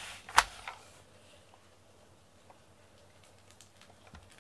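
A single sharp click about half a second in, then a few faint scattered ticks over quiet room tone.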